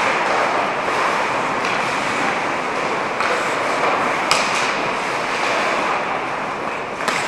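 Ice rink noise: a steady hiss of skates on the ice, with a sharp knock about four seconds in and another near the end.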